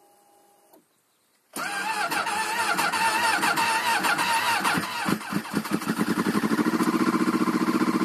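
2007 Yamaha Phazer snowmobile's four-stroke twin cold-started at about −30 °C: about a second and a half in it is suddenly cranked with a wavering, labouring sound, catches around five seconds in, and settles into a steady fast idle.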